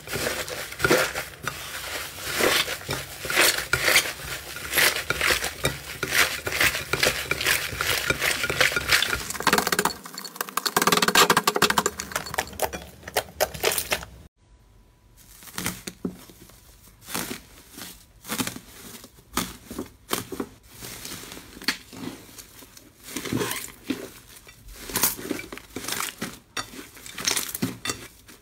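Hands kneading and squeezing a large mass of slime, making a dense run of clicks and crackling pops. About halfway through the sound cuts out briefly, then sparser, quieter pops and crackles follow as other slimes are pressed and stretched.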